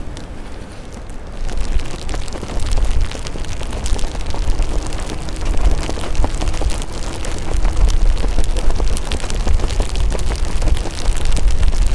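Wind buffeting the microphone with a low, uneven rumble while riding an electric unicycle in the rain, with many small raindrop ticks over a hiss. A faint steady hum comes in about four seconds in and fades out near the end.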